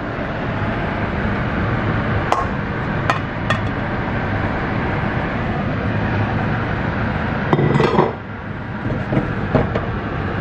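A bowl and a wooden spoon clink and knock against a stainless-steel saucepan as flour is tipped in and stirred into the hot water and butter. There are a few sharp clinks a couple of seconds in and a louder clatter about eight seconds in, over a steady rushing background noise.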